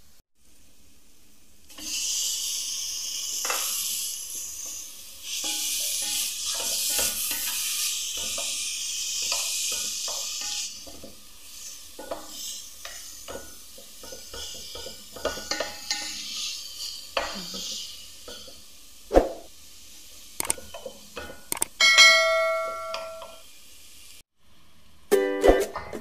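Meat and vegetables sizzling loudly in hot oil in a stainless steel pot as they are sautéed with onions. The sizzle is followed by irregular clicks and knocks of a spoon stirring against the pot. Near the end there is a brief ringing tone, and ukulele music begins.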